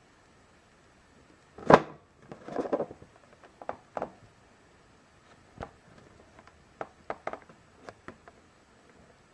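Hands handling a cardboard figure box: one sharp knock about two seconds in, a brief rustle of the box, then a scatter of light taps and clicks.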